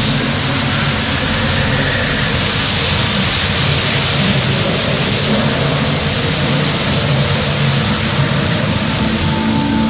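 Tourist train running along its route: a loud, steady rushing hiss over a low engine hum.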